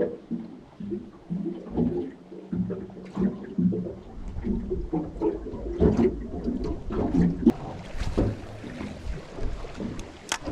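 Water lapping and slapping irregularly against a small boat's hull, with a few sharp knocks.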